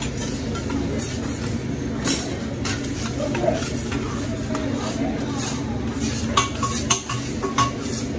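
Hibachi chef's metal spatula clinking and scraping on the flat-top griddle: scattered sharp metal clicks, several in the second half, over a steady low background din.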